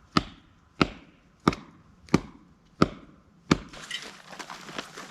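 A dead aspen being brought down: a run of six sharp wooden knocks about two-thirds of a second apart, then, about four seconds in, a dense crackling and splintering as the wood begins to give way.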